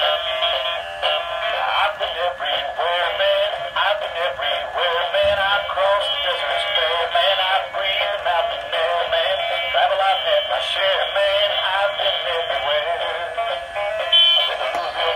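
Gemmy 'Dog Gone Fishing' animated toy truck playing its built-in song, a singing voice with music, through its small speaker. The sound is thin, with no bass.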